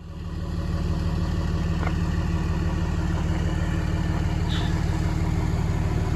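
Engine idling steadily with an even low pulsing.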